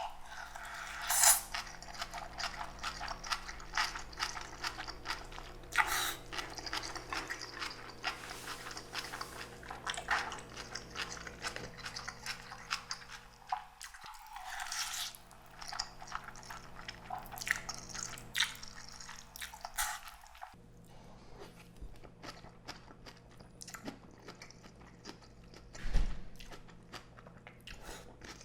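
A person eating nakgopsae (spicy octopus, beef tripe and shrimp stew) close to the microphone: a steady run of wet chewing and smacking clicks, with a heavier thump near the end.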